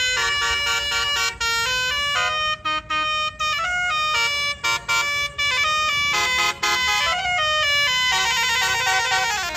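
Tour bus's Basuri telolet horn playing a melody: loud multi-tone horn notes stepping quickly up and down, broken by a few short gaps, with a falling run of notes near the end.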